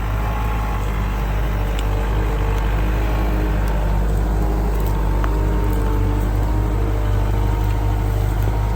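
Diesel engine of heavy earthmoving equipment running steadily at working speed, a constant low drone with a faint whine above it.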